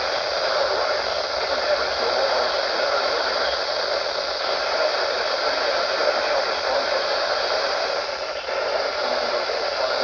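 Steady hiss of static from a weather radio receiver, with no clear voice or tones coming through.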